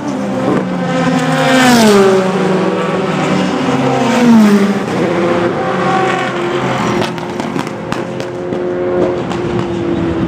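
Endurance race car engines at speed on the circuit. The engine notes sweep down in pitch twice, about two and four seconds in, as cars go by, then a steadier engine note holds through the rest.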